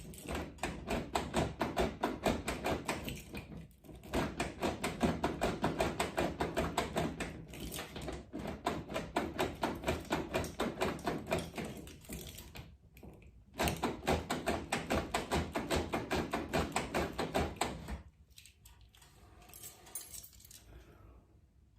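A key being wiggled rapidly back and forth in the stuck manual door lock cylinder of a 1995 Nissan D21, rattling and clicking metal on metal about four times a second. There are a few short pauses, and it stops about 18 seconds in. The lock is being worked loose after cleaning and lubrication.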